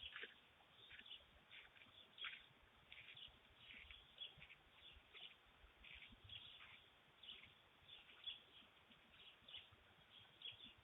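Birds chirping faintly: many short, quick chirps scattered through, with no steady song.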